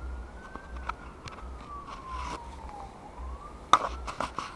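A siren wailing, one tone slowly rising and falling in pitch, with a few sharp clicks and knocks over it, the loudest about three-quarters of the way through.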